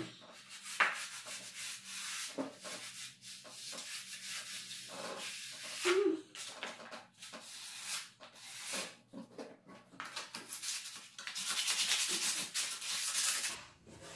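Sandpaper rubbed by hand along a wooden stair handrail, in short, irregular scratchy strokes, with a longer unbroken stretch of sanding near the end. The wood is being sanded down to prepare it for repainting.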